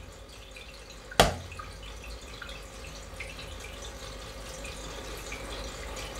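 One sharp knock about a second in, then a faint steady trickling hiss.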